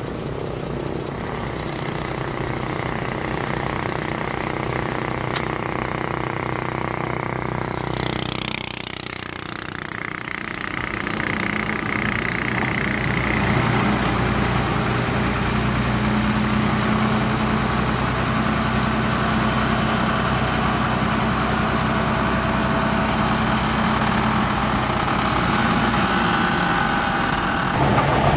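Heavy diesel engine of an earth-moving machine running steadily, with a short high hiss about eight seconds in. The engine then gets louder from about eleven seconds in.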